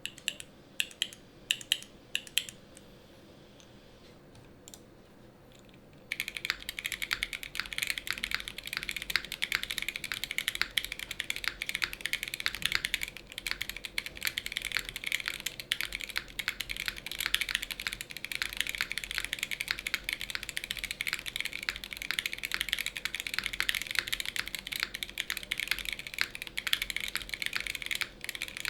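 Mode Sonnet mechanical keyboard with lubed Boba U4T tactile switches on a POM plate and PBT keycaps being typed on. A few separate keystrokes come first, then a pause of a few seconds, then fast continuous typing from about six seconds in.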